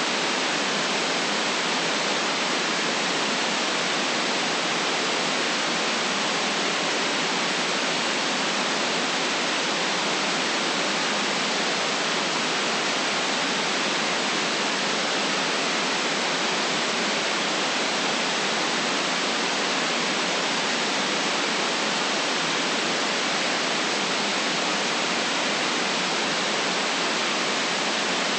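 Steady white noise: an even, unchanging hiss with no low rumble and no events in it.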